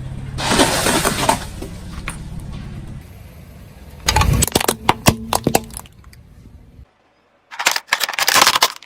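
Brittle objects cracking and crunching as they are crushed under a car tyre, in three spells of snapping and breaking with a low engine hum beneath the first two.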